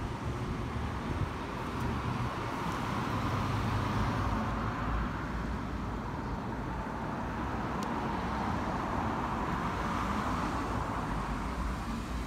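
Road traffic: cars driving past, a steady hum of engines and tyres on asphalt that swells twice as cars pass close by.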